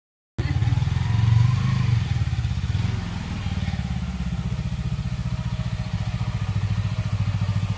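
Motorcycle engine running at low revs with a steady low pulse, a little louder about a second in, as the bike moves off slowly.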